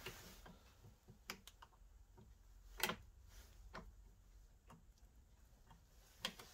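Faint, scattered metallic clicks and ticks as small parts are handled with pliers, about half a dozen spread over several seconds, the sharpest a little under halfway through.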